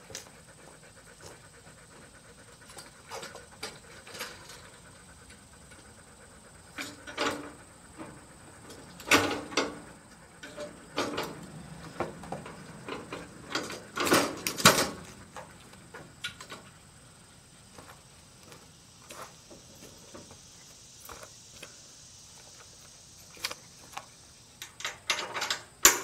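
Scattered metal clanks, knocks and rattles as the steel quick-release bracket of a lawn-striping kit is handled and fitted into its mount on a zero-turn mower. The knocks come in several short clusters, the loudest about halfway through and again right at the end.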